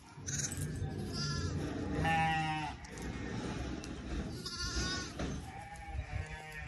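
Shetland sheep bleating, about four calls, the longest and loudest about two seconds in, over a low background rumble.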